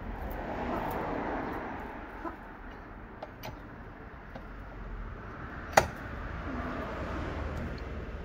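Lug nuts being threaded onto an alloy wheel and turned with a lug wrench: a few light metal clicks, with one sharp, loud metallic clink a little before six seconds in, over steady background noise.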